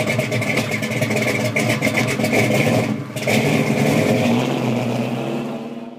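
A car engine running and revving, loud, with a short break about three seconds in; it fades out near the end.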